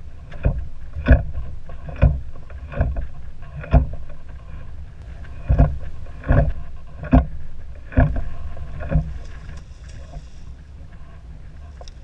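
Chop slapping against the hull of a drifting pontoon boat: about ten hollow thumps, roughly one a second, then none for the last few seconds. A steady low wind rumble on the microphone runs underneath.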